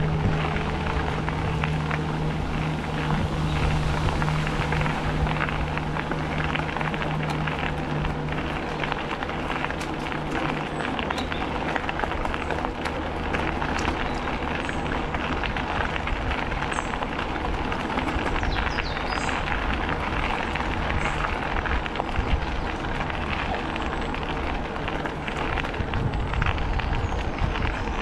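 Bicycle rolling steadily along a trail: tyre noise on the path with a fine crackle of grit, mixed with wind on a GoPro action camera's microphone. A low steady hum underneath fades away about halfway through, and a few brief high chirps come in the second half.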